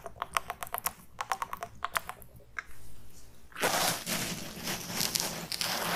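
A quick run of small clicks and taps from a flip-cap bottle of makeup remover being handled over a cotton pad. About three and a half seconds in, a dense, close rustle starts as a cotton pad is rubbed against the microphone.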